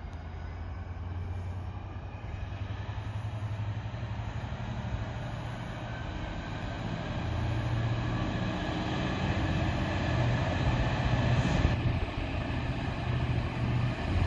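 Train running through the station, a steady low rumble and hum that slowly grows louder as it comes closer.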